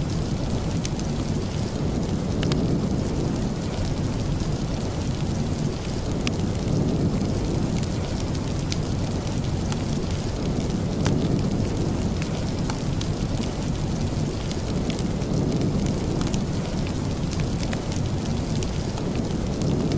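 Steady rain falling, with a deep rumbling undertone that swells and eases slowly, and scattered faint sharp ticks over it.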